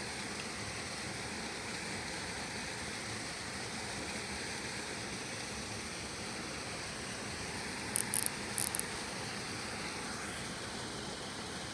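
Steady hiss of outdoor background noise, with a short run of faint, very high clicks about eight seconds in.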